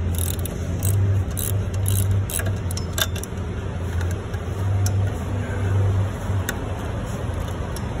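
Hand ratchet with a 9/16 socket loosening the nuts on a fan hub, giving scattered metallic clicks and clinks over a steady low engine hum.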